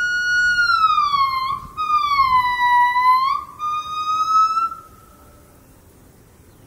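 Male buff-cheeked gibbon singing: three long, pure, siren-like whistled notes, the first held then falling, the second dipping and rising again, the third rising slightly. The song stops about five seconds in.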